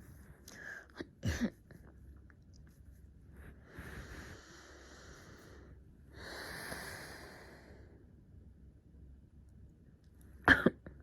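A person's breathing and throat clearing. There are short throat-clearing sounds about a second in, then two long breaths, then a sharp double throat clear near the end, which is the loudest sound.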